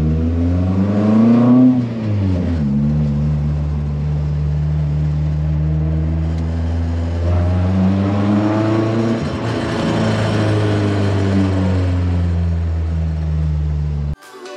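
Buggy engine running while driving, heard from inside the open cabin. Its pitch climbs about two seconds in and drops sharply, then holds steady before rising and falling again near the middle. It cuts off suddenly just before the end.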